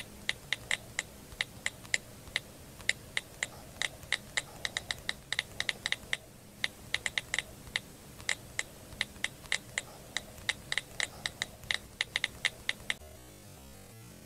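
Keyboard typing clicks, quick and irregular at a few keystrokes a second, over a faint steady hiss; the clicking stops about a second before the end.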